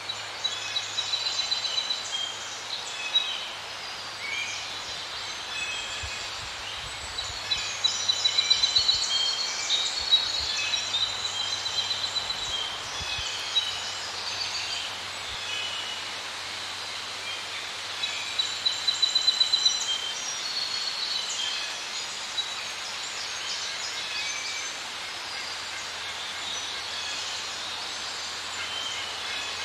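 Several small birds singing and calling at once, with bursts of fast high trills several times over a faint steady background hiss.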